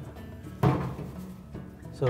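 A single short knock a little over half a second in, from tool work on the drum roller shaft inside a dryer cabinet, over soft background music.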